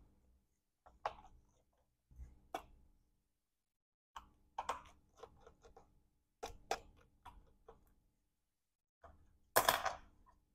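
Faint clicks, taps and light clatter of a small screwdriver and parts on a workbench as the bottom case of a MacBook Pro A1989 laptop is taken off, coming in several short clusters with the loudest clatter near the end.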